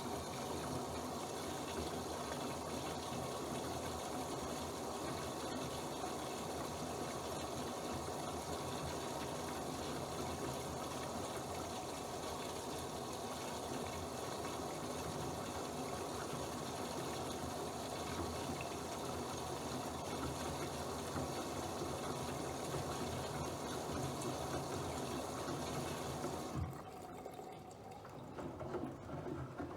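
Bosch WFP3231 washing machine taking in water: a steady rush of water that cuts off suddenly near the end, leaving quieter machine noise.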